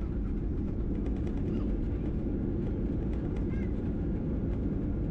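Steady low rumble of an airliner cabin as the plane comes in to land.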